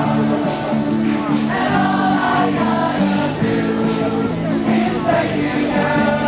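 A group of people singing together to live music, with held notes that change every second or so.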